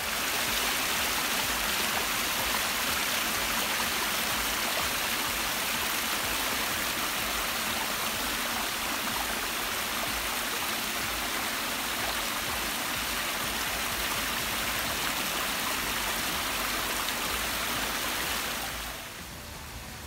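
Small woodland waterfall splashing down over rocks into a stream: a steady rush of falling water that drops off sharply near the end.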